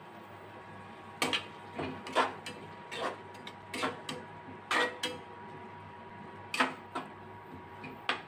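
A steel spatula scraping and knocking against a metal kadai while shredded cabbage and tomato are stir-fried, with irregular clanks one or two times a second.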